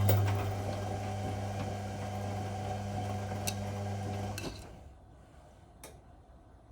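Whirlpool Indiana 1400 washing machine running with a steady low hum and a rushing noise, which stops about four and a half seconds in. A single click follows near the end.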